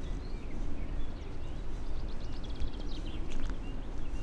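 Songbirds chirping in floodplain woodland, with a fast trill of repeated notes about two seconds in, over a steady low rumble.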